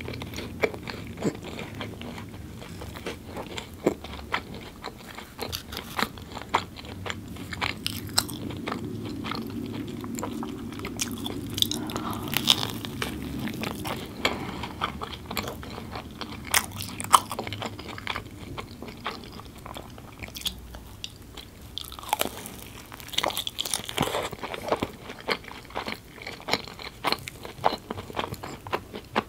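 Close-miked eating of a fried vegetable samosa: biting, crunching and chewing, with many small sharp crunches of the pastry in an irregular run.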